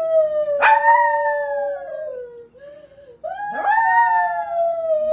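Poodle howling in long, drawn-out notes that slide slowly down in pitch: two long howls with a short note between them, each begun with a quick upward yelp.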